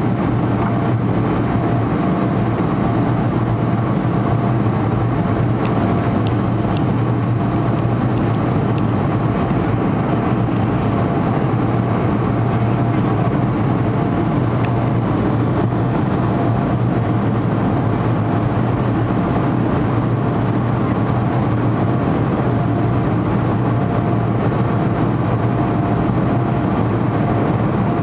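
Turbofan engines of a high-wing jet airliner heard from inside the cabin during the climb after take-off. It is a steady drone with a strong low hum and thin, even high-pitched whines over it.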